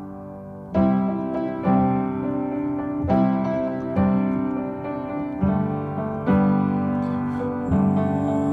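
Background piano music: chords struck about once a second.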